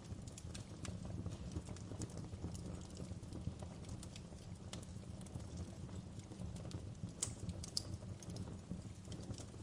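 Fire burning: a steady low rumble with irregular sharp crackles and pops, a couple of louder pops a little past the middle.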